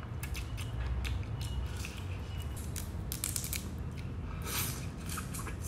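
Grilled crab shell cracking and being chewed: a run of sharp crackles and crunches, thickest about three seconds in and again near the end, over a low steady hum.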